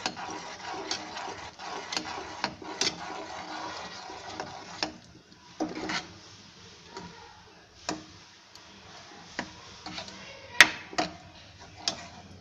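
A steel spoon stirring a thick masala paste in a nonstick kadhai, scraping through the paste and knocking irregularly against the pan. The scraping is busiest in the first few seconds and thins out later into separate clicks, with the sharpest knock about ten seconds in.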